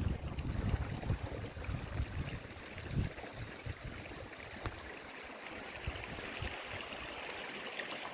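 Hill stream running over rocks and into small pools: a steady rush of water. Low thuds over the first three seconds, then the water alone.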